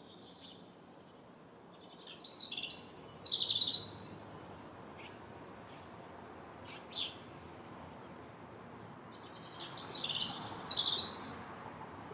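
A wren singing two bouts of rapid, trilled song, each about two seconds long and several seconds apart, with one short high call note between them.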